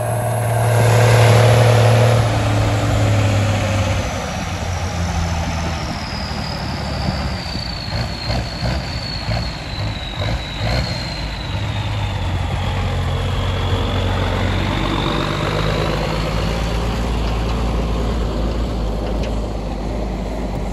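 Large truck engine running steadily, louder and fuller for a moment about a second in, with a thin high whine that slowly falls in pitch through the middle.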